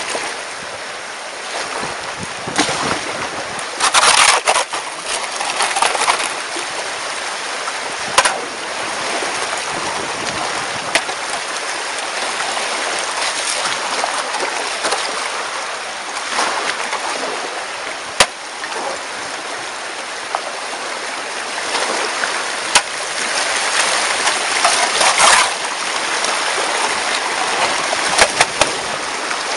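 Water of a shallow rocky rapid rushing and splashing around an inflatable kayak's bow, surging louder about four seconds in and again near the end, with a few sharp knocks.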